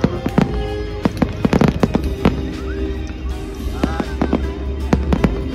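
Fireworks going off: a rapid, uneven string of sharp bangs and crackles over a low rumble, with music playing along.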